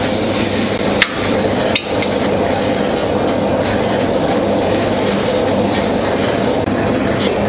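Multipurpose roaster's motor-driven stirring paddle turning in a stainless steel bowl of melting jaggery, a steady mechanical hum. Two sharp clicks come about one and two seconds in.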